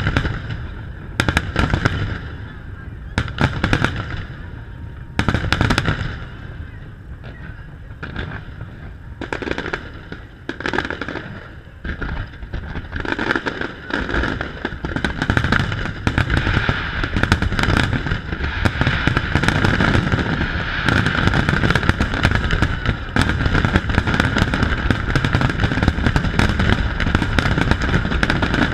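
Aerial fireworks shells bursting: separate sharp bangs a second or two apart at first, then, from about halfway, a dense and louder barrage of rapid bangs and crackling.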